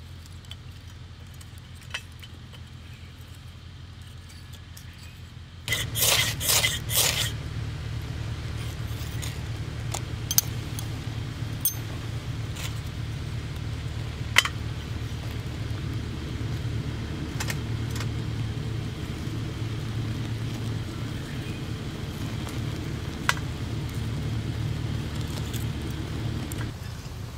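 Wood-shaving tinder and kindling being lit in a fire pit: a quick cluster of loud sharp sounds about six seconds in as it lights, then a steady low rush of flame with scattered crackles and pops from the burning sticks and shavings.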